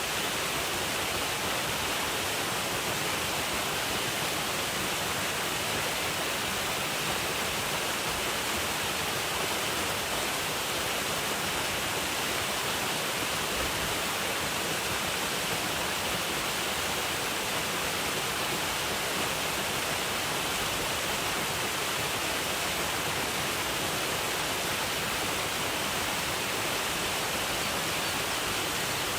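Waterfall: a steady rushing roar of falling water, even and unbroken, without any single splashes standing out.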